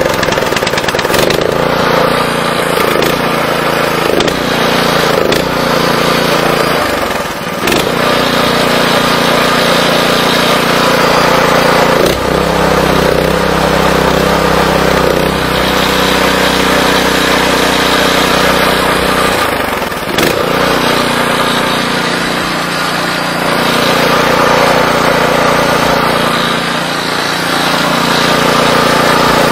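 Single-cylinder petrol engine of an Oka walk-behind tractor running with its air filter removed, its speed changing a few times with brief dips. It is being run to check why it stalled with black smoke.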